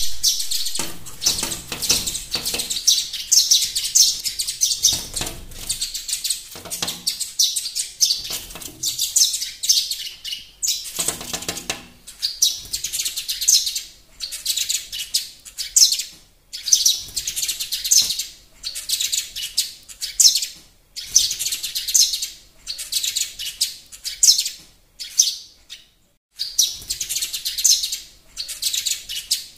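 Sparrows chirping close by, a busy run of short high chirps in bursts of a second or two with brief pauses between them.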